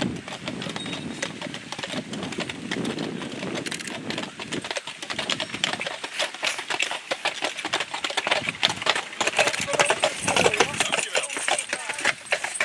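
Hooves of a team of draft horses clopping on a paved towpath as they walk, the clatter getting louder as they come close, about 8 to 11 seconds in.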